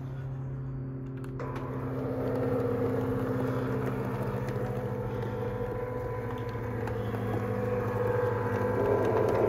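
Intelroll INT500 awning's electric motor running with a steady low hum; a louder whirring joins about a second and a half in and swells towards the end.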